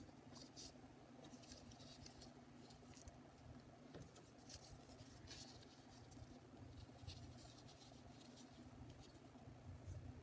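Faint rustles and scrapes of torn watercolor paper strips being slid and laid against a paper sheet, in short irregular bursts over a low steady hum.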